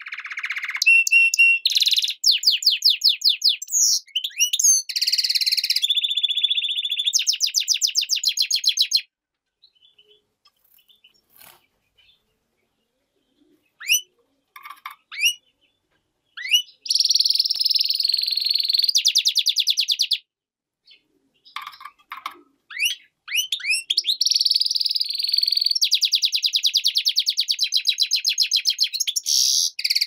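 Caged European goldfinch × canary hybrid (a mule) singing in long phrases of fast trills and rapidly repeated notes. About nine seconds in the song stops for a few seconds, broken only by a few single chirps, then resumes.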